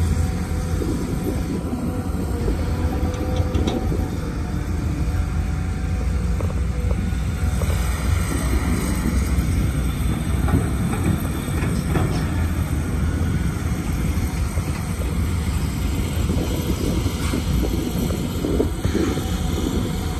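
Cat 323GC excavator's diesel engine running steadily under load with its hydraulics working, a deep continuous rumble with a few light knocks from the machine.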